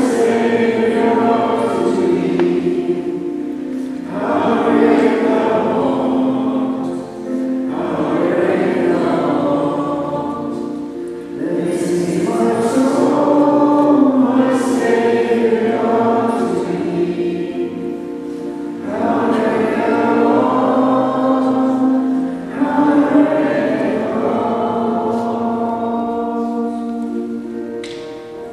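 A choir singing a slow song in long, held phrases, each swelling and then dipping every few seconds.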